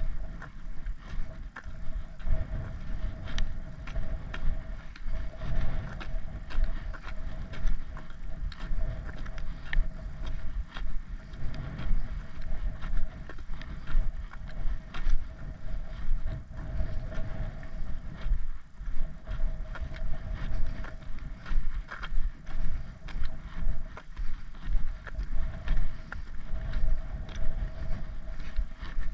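Footsteps on a tarmac lane at a steady walking pace, about two a second, under a low wind rumble on the microphone.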